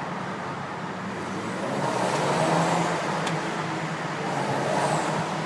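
Turbocharged engine of a 2012 BMW X5 running under way in a tunnel, over steady road noise that swells about two seconds in. A faint high turbo whistle falls in pitch twice, once about two seconds in and again near the end.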